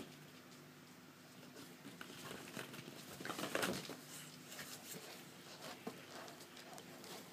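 Hollow plastic ball-pit balls clicking and rustling as a puppy shifts and scrabbles among them, with a busier burst of scuffling about three seconds in.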